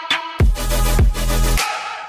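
Electronic dance music with a heavy, sustained bass note that hits about half a second in and fades out near the end.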